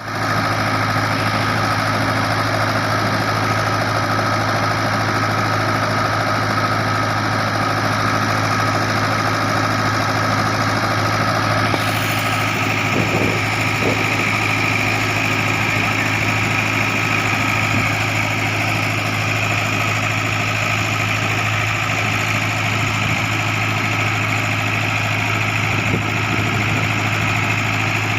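Heavy diesel engine of construction machinery running steadily at a constant speed. About twelve seconds in, the sound turns brighter, with a higher-pitched whine added.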